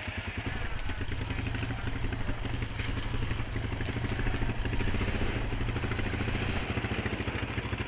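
ATV engine running steadily with an even firing pulse, easing slightly near the end.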